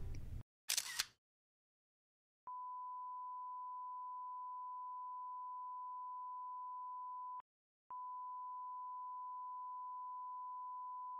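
A steady, pure electronic beep tone at one pitch, held for about five seconds, breaking off for half a second, then starting again. Before it, near the start, there is a short burst of noise and then a moment of silence.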